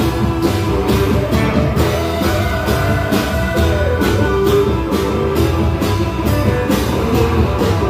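Live rock band playing: electric and acoustic guitars and keyboard over a steady beat.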